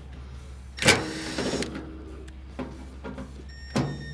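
Cordless Milwaukee driver spinning briefly about a second in, backing a screw out of a sheet-metal panel, with a second short run near the end.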